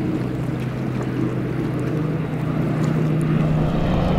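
Turboprop drone of firefighting planes flying past: first the single-turboprop Air Tractor AT-802A Fire Boss, then the twin-turboprop Canadair CL-415 overhead. The drone holds a steady pitch, steps up in pitch about halfway through, and grows louder toward the end.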